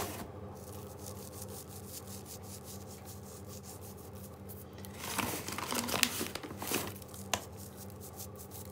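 Salt being sprinkled by hand over sliced raw vegetables in a baking dish: soft rustling with a few light clicks for about two seconds, starting about five seconds in, over a steady low hum.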